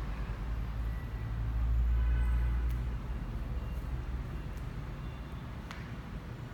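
Low rumble of a passing motor vehicle, swelling about two seconds in and then easing off, with a few faint clicks.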